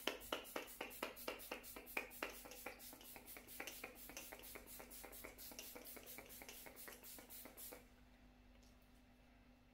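Fine-mist spray bottle pumped over and over in quick succession, about three to four short hissing sprays a second, stopping shortly before the end.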